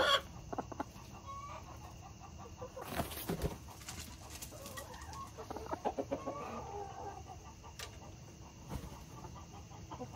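Domestic hens clucking softly on and off, with a few clicks and rustles about three seconds in.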